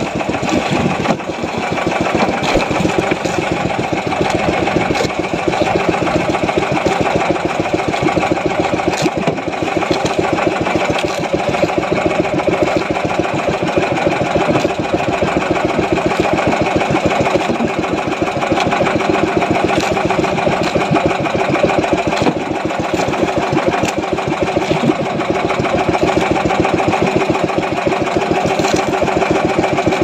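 Small boat engine running steadily at an even speed, a fast continuous chug.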